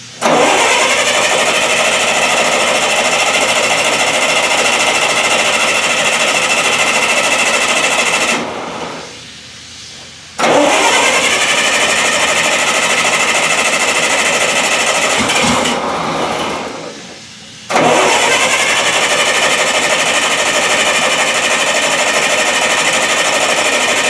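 Bobcat 610 skid steer's Wisconsin gas engine being cranked by its starter motor in three long attempts of several seconds each. The starter kicks in abruptly and spins up each time, then spins down when released, with short pauses between. The engine does not fire: it is flooded or lacking spark or fuel.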